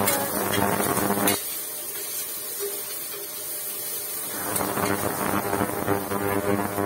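Onions, garlic and green chillies sizzling in hot mustard oil in a stainless steel pressure cooker, a steady hiss as they are fried and stirred with a spatula. A single sharp click about a second in.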